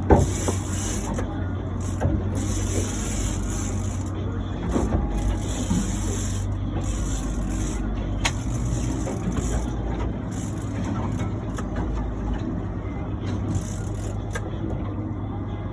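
Boat engine running with a steady low drone while the boat holds position for an angler fighting a fish. On top of it come stretches of high hiss that start and stop every second or two, and there is a sharp knock at the very start.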